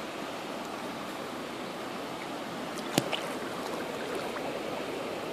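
Shallow stream running steadily over pebbles and stones, with a single sharp click about three seconds in.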